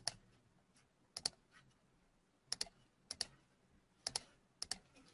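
A computer mouse clicking faintly: six pairs of sharp clicks at uneven intervals, the two clicks in each pair a split second apart.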